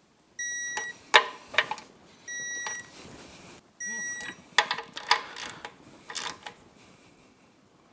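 Digital torque wrench beeping three times, each a short steady beep, as it reaches its preset torque on the outboard's lower cap bolts, with sharp clicks and knocks of the wrench on the bolts between and after the beeps.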